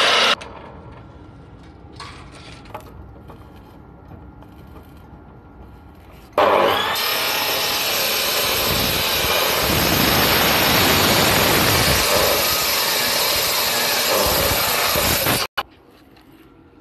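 Abrasive cut-off saw grinding through a steel box section: loud briefly at the start, then a quieter stretch with a few knocks, then a long cut of about nine seconds from about six seconds in that stops suddenly.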